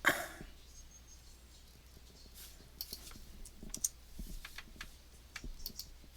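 Faint, scattered computer keyboard and mouse clicks, irregular and spaced out, mostly from about two seconds in.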